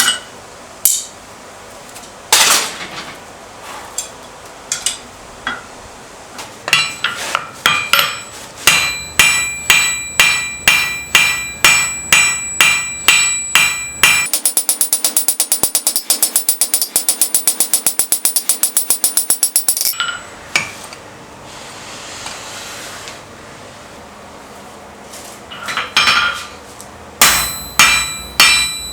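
Hammer blows on hot steel over an anvil, ringing. A few scattered knocks first, then steady strikes at about two a second, a quick run of rapid, even blows lasting about six seconds halfway through, and steady striking again near the end.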